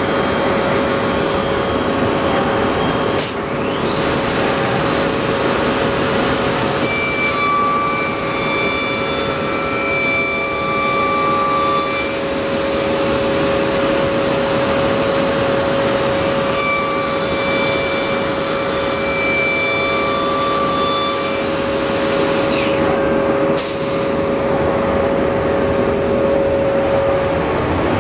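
Morbidelli SCM M 100 CNC processing centre's 5-axis spindle machining a wooden panel: a loud, steady machine hum with a constant whine. Twice, for about five seconds each, a cluster of higher whining tones joins in during the cut. There is a short rising sweep about three seconds in and another near the end.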